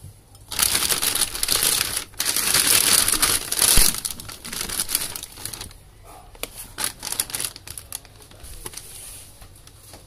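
Thin plastic shopping bag crinkling loudly as a cardboard box is pulled out of it, easing after about four seconds into quieter, scattered crinkles and taps.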